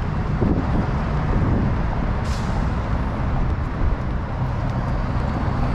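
Outdoor street traffic: a steady low rumble of vehicles, with a short hiss, like a bus or truck air brake releasing, about two seconds in.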